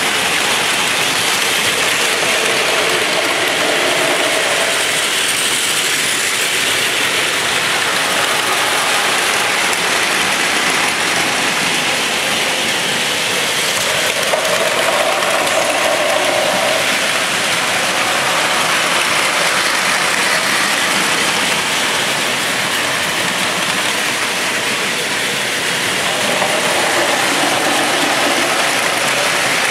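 Many battery-powered Plarail toy trains running at once on plastic track: a steady, dense whir and clatter of small motors, gears and wheels on plastic rails, swelling now and then as a train passes close by.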